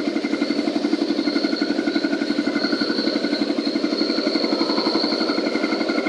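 Concrete mixer running steadily, with a fast, even pulsing throb and a thin, steady high whine above it.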